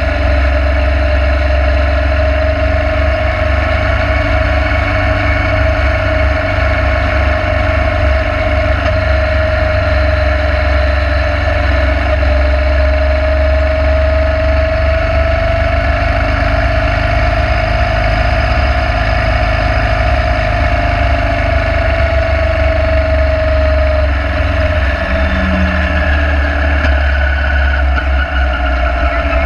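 Motorcycle engine running at a steady cruise, its tone drifting slowly up and down with road speed, under a heavy rumble of wind on the microphone.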